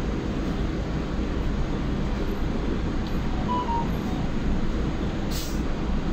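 Cabin noise inside a moving Solaris Urbino 9 LE battery-electric bus: a steady low rumble of the ride and tyres. Two faint short beeps come about three and a half seconds in, and a short hiss a little after five seconds.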